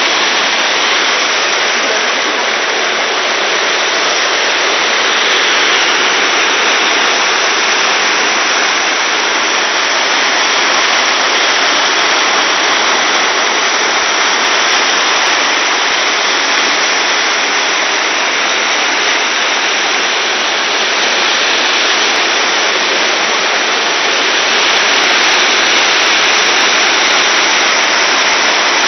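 Alaknanda river in flood, its fast floodwater rushing with a steady, loud roar.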